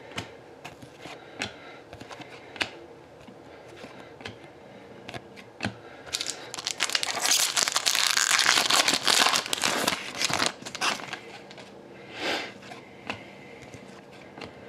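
Small clicks and rustles of trading cards being handled. About six seconds in comes a few seconds of loud crinkling and tearing as a card pack's foil wrapper is ripped open and crumpled, then a short swish.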